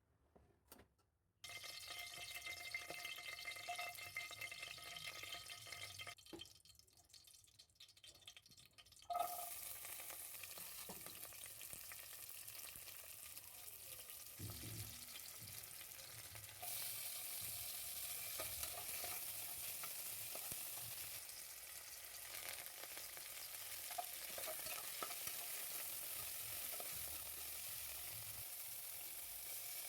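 Food frying in hot oil in a cooking pan, a steady sizzle. It fades between about six and nine seconds in, returns with a knock, and grows louder about sixteen seconds in.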